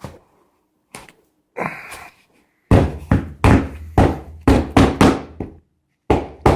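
Sharp knocks and thumps from the shipping box being handled: a few light taps and a brief rustle, then a quick run of about eight heavy thumps in under three seconds, a short pause, and more thumps near the end.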